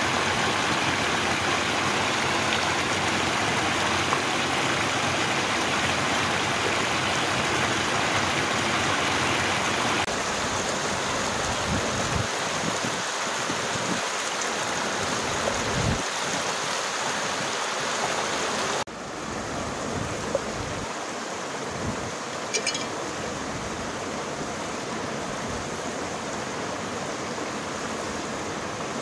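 Shallow mountain stream rushing over rocks: a steady water noise that drops in level twice. There are a few light knocks and clicks partway through.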